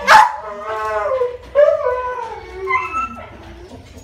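Cardigan Welsh Corgi crying out during mating: a sharp yelp at the start, then drawn-out whines and howls that waver and fall in pitch, with another loud cry about one and a half seconds in.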